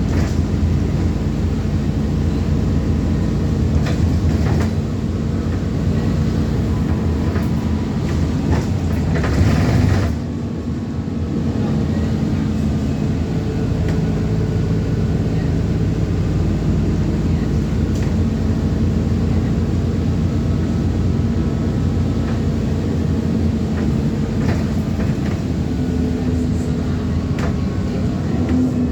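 ADL Enviro400 Trident double-decker bus running under way, a steady engine drone mixed with knocks and rattles. The noise builds until about ten seconds in, drops off suddenly, then runs steady again.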